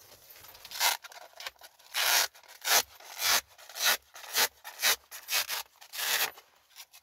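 Fabric seat cover rubbing and rustling against a car's rear seat backrest as it is handled, in about ten short scratchy rubs roughly two a second, starting about a second in.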